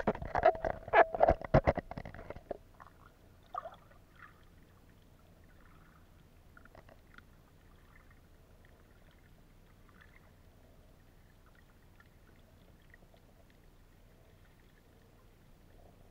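Underwater sound picked up by a submerged camera: loud bubbling and splashing for the first couple of seconds, then a faint steady underwater hiss with scattered small crackles.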